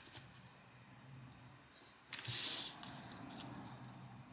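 Origami paper being handled and folded by hand: faint rustles and ticks, with one louder brief swish of paper sliding about two seconds in as a flap is brought down and creased.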